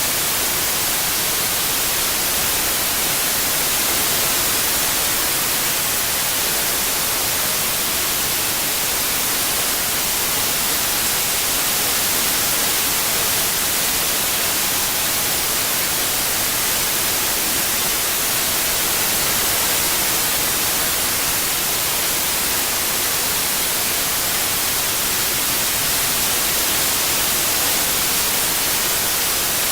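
Synthetic white noise: a steady, even hiss, brightest in the treble, with no change in level.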